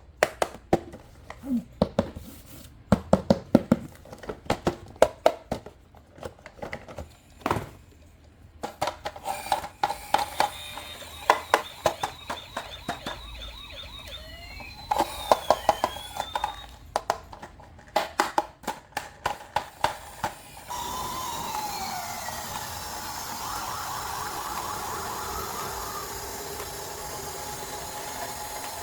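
Electronic siren sound effects from a battery-powered toy vehicle, wailing in rising and falling glides from about a third of the way in and growing louder and steadier near two-thirds in, over repeated sharp clicks of plastic toy parts being handled.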